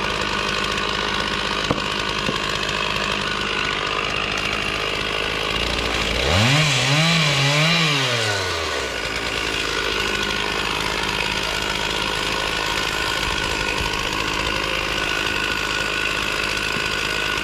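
Gas chainsaw engine running steadily, revved up twice in quick succession about six to eight seconds in, its pitch climbing, dipping and climbing again before dropping back. The revving is the loudest part.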